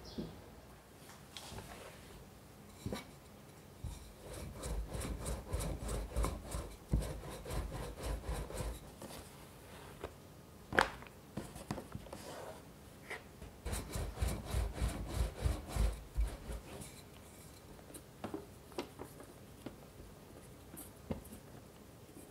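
Rolling pin rolling out a sheet of puff pastry on a wooden cutting board: two runs of quick back-and-forth strokes, with one sharp knock between them.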